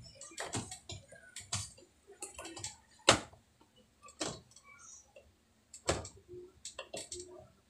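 Irregular clicks and knocks of hands pressing a front-load washer's rubber door boot seal back onto the lip of the door opening, with the sharpest knock about three seconds in.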